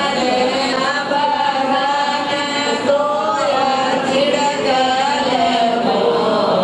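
Background music: voices singing a flowing, chant-like melody.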